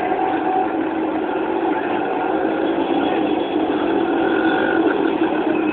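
Steady traffic noise of cars and pickup trucks moving slowly along a crowded road, their engines running under a dense, even hum.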